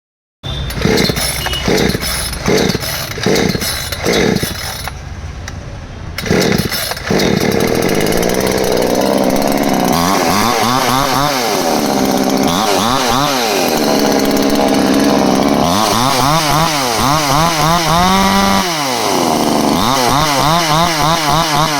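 Chainsaw starting up and then being revved up and down several times to check a newly fitted chain. It begins with a run of rough pulses about two-thirds of a second apart, then from about seven seconds in runs steadily, its pitch climbing and falling with each rev.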